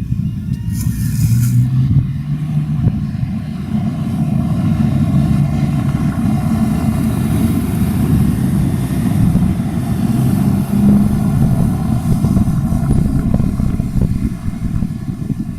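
Modified car's engine running at low revs, a deep, fairly steady exhaust note with no hard revving. A short hiss about a second in.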